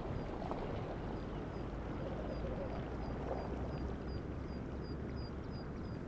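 Strokkur geyser's hot-spring pool churning and gurgling between eruptions: a steady low rush of water, mixed with wind on the microphone.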